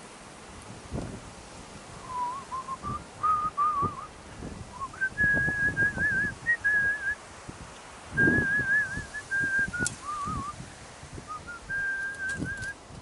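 A person whistling a tune, one clear wavering note stepping between pitches and broken into phrases, with low knocks and thuds from the work underneath.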